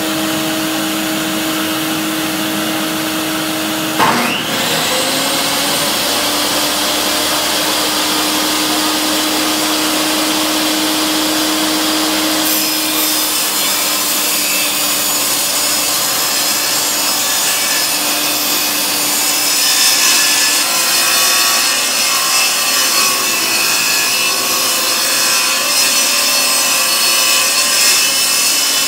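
A shop vacuum runs with a steady hum. About four seconds in, a table saw is switched on with a click and its motor spins up. From about twelve seconds the blade rips along a wooden board, trimming a crooked edge straight, and the cut continues to the end.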